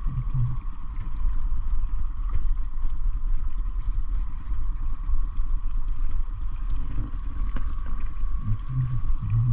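Small boat's outboard motor running steadily at trolling speed, a constant drone over a heavy low rumble of wind on the microphone.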